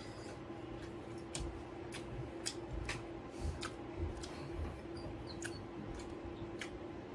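A person eating seafood boil with their hands: chewing and lip smacks, with about a dozen short, sharp clicks spread unevenly through, over a steady low hum.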